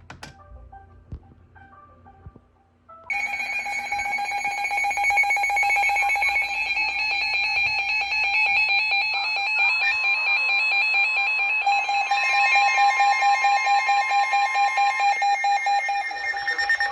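A few faint short beeps, then about three seconds in a weather alert radio sounds its alarm: loud, pulsing electronic alert tones, with further tones joining later. The alarm signals an incoming severe thunderstorm warning.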